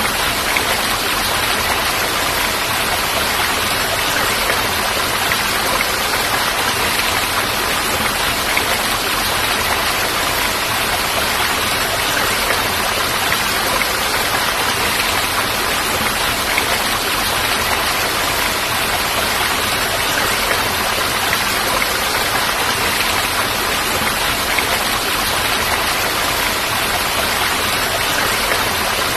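Steady rushing of falling water, even and unchanging throughout.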